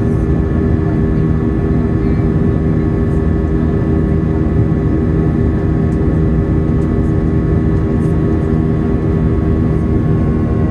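Airbus A320 twin IAE V2500 turbofan engines at climb thrust, heard from inside the cabin over the wing: a loud, steady rush of engine and airflow noise with several steady droning tones.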